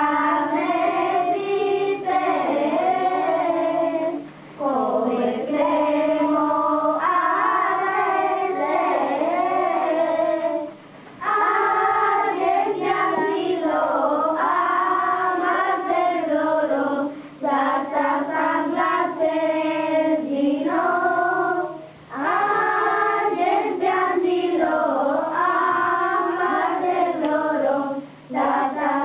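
A group of children singing a Romani Christmas carol (kolinda) from lyric sheets. Their sung phrases are separated by short breaks about every five to six seconds.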